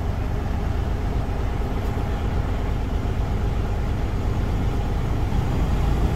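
Diesel truck engine running steadily, heard from inside the cab, with the revs held up while its air compressor builds brake air pressure from 85 toward 100 PSI in an air brake build-up test.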